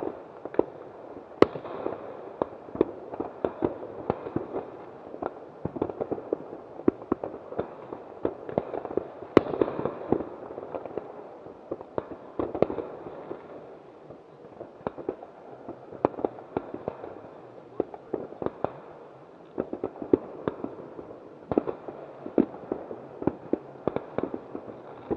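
Fireworks and firecrackers going off: an irregular, continuous run of pops and bangs, with two louder sharp cracks about a second and a half in and about nine seconds in.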